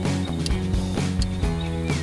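Background music with a steady beat, about two beats a second over held notes.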